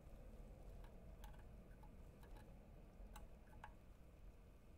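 Near silence with a few faint, scattered ticks, about six in all, from a soldering iron tip and tweezers touching a circuit board.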